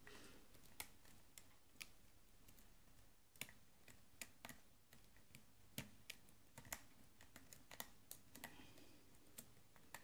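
Faint, irregular clicks and crunching from the serrated key pins of a brass pin-tumbler padlock as a lock pick lifts them under tension, roughly one or two clicks a second.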